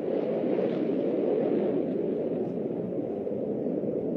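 Jet roar of the JF-17 Thunder's single Klimov RD-93 turbofan in its flying display: a steady, rumbling noise that swells slightly about a second in, then eases a little.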